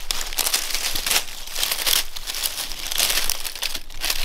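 Dry fallen oak leaves rustling and crackling as a hand moves among them, handling the body of a shot western gray squirrel; an uneven run of short crinkles.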